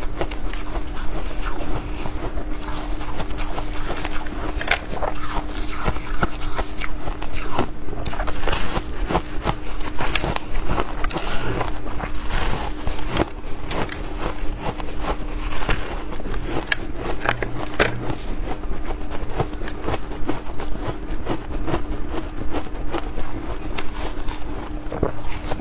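Close-up crunching and chewing of compacted shaved ice bitten from a hand-held chunk: a dense run of sharp cracks and crackles, over a steady hum.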